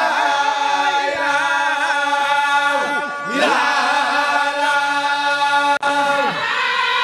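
A crowd of men chanting a Layène Sufi zikr in unison, holding long notes. The chant breaks off briefly about three seconds in and starts a new long note, and the sound drops out for an instant near the end.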